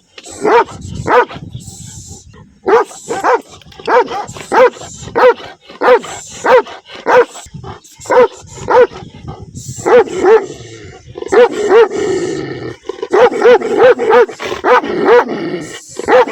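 Large dog barking angrily and repeatedly, about two barks a second, in runs broken by short pauses.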